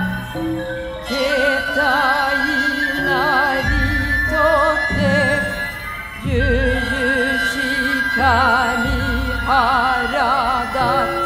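Stage music: a wavering melodic line with strong vibrato over a long held high tone, with low thuds a few times.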